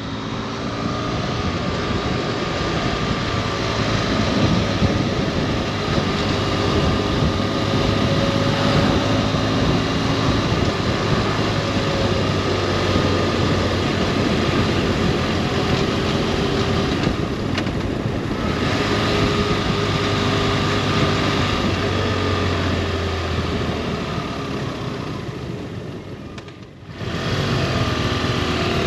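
Motorcycle engine running at road speed with heavy wind noise, as on a ride; the sound drops out briefly near the end and comes back.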